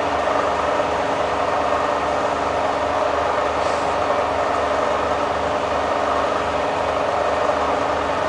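Bridgeport variable-speed milling head running, its spindle turning while the quill power feed lowers the quill. It makes a steady mechanical hum with several steady tones.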